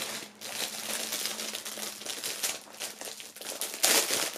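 Thin clear plastic bags crinkling and rustling as hands pull items out of them, with a louder rustle near the end.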